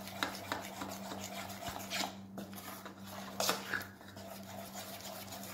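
A hand mixing thin pancake batter in an aluminium bowl: irregular wet rubbing and squishing with small clicks and scrapes against the bowl, a couple of them louder about two and three and a half seconds in.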